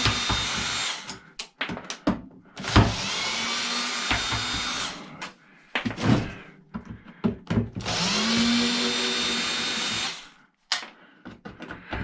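Power drill run three times in bursts of about two seconds, each spinning up quickly then holding steady speed, with clicks and clatter of handling between the runs.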